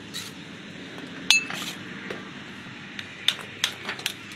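Steel bricklaying trowel clinking against brick as bricks are set and tapped down into mortar. One sharp clink rings briefly about a second in, then a quick run of five or so taps follows near the end.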